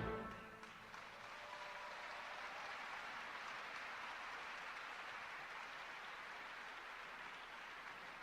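Ice dance program music cutting off at the start, followed by steady applause from the rink audience that swells a little and then slowly fades.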